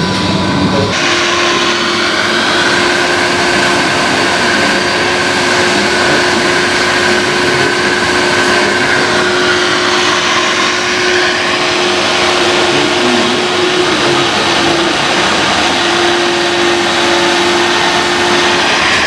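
Electric drive of radio-controlled model machines running steadily: a whine in two pitches over a steady hiss, which shifts about a second in.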